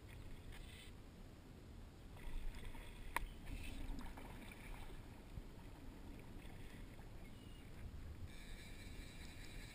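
Faint water sloshing in shallow water over a low rumble of wind on the microphone. A cluster of louder splashy sounds comes about two to four seconds in, with one sharp click about three seconds in.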